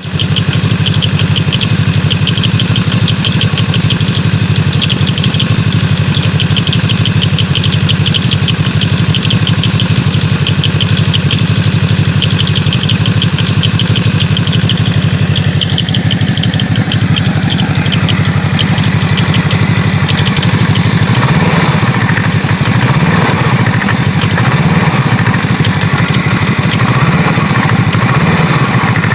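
Engine of a BRP vehicle idling, with a rapid, even clicking from the CVT clutch: an abnormal click at idle at about 14,000 km. The clicking fades after about 16 seconds, and later the engine note rises and falls several times.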